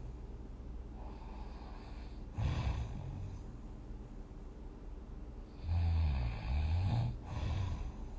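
A person snoring in sleep, in separate low snores: a faint one about a second in, a loud short one about two and a half seconds in, and the loudest and longest about six seconds in, followed by another shorter snore.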